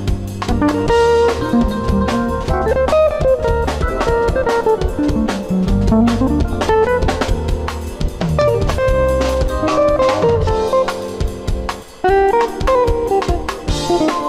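Gibson ES-175 archtop electric guitar playing fast single-note jazz-fusion lines that run up and down, over a backing track with drum kit. The music briefly drops out about twelve seconds in.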